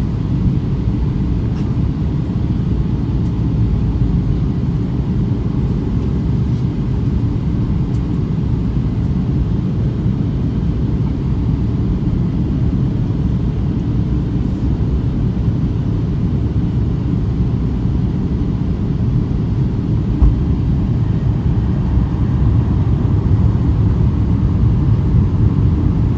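Steady low rumble of an airliner cabin in flight: jet engine and airflow noise, growing a little louder near the end.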